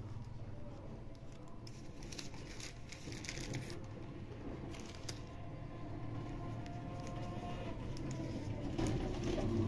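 Clear plastic sheets over drawings crinkling as they are handled, in short crackly bursts between about two and five seconds in, over a low steady hum. Faint music begins to come in near the end.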